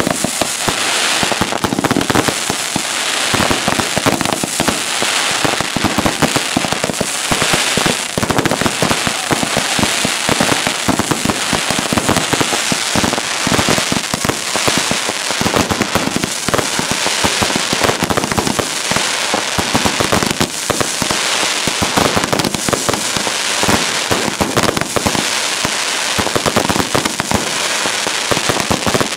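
Fireworks going off close overhead in a continuous barrage of rapid bangs and crackles, one after another without a break.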